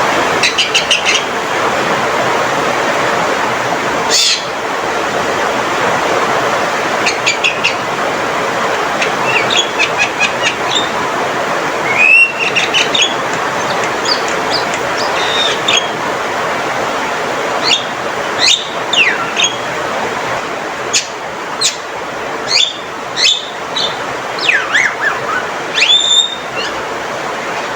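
Male Javan myna calling: short bursts of rapid clicking chatter and sharp whistles that slide up or fall, repeated every second or two, over a steady rushing hiss.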